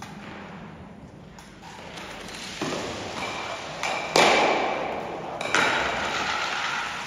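Stocks (curling-like stocks) sliding over the hard hall floor with a swelling scrape, then several hard clacks and knocks as they land and strike. The loudest comes about four seconds in, and a ringing tone hangs after the hits.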